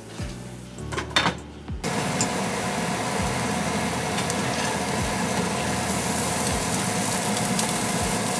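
Rice frying in a hot skillet for garlic rice: a loud, steady sizzle that starts suddenly about two seconds in. Before it come a few light clicks and knocks.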